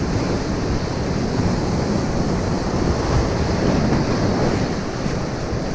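Ocean surf breaking and washing over reef rocks in a steady rushing wash, with wind rumbling on the microphone.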